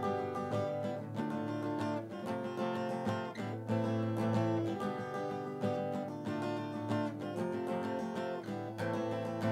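Steel-string dreadnought acoustic guitar strummed in a steady rhythm, with the chord changing every couple of seconds.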